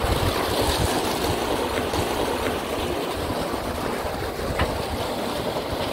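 Steady rushing of pumped water flowing through the irrigation pipe into the storage sump, with wind buffeting the microphone in an irregular low rumble.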